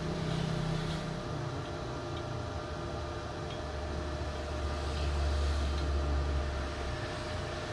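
Steady low mechanical hum that swells louder for a few seconds in the middle.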